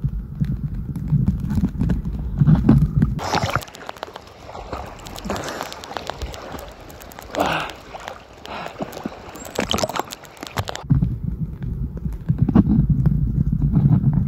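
River water heard through a submerged camera, a dense muffled low rumble. From about three seconds in until near the end it gives way to brighter splashing and gurgling water with small clicks and drips, then goes back to the muffled underwater sound.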